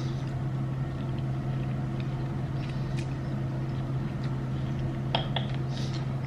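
Steady low hum, with a few light clicks of chopsticks and dishes during a meal: one about halfway through and two close together near the end.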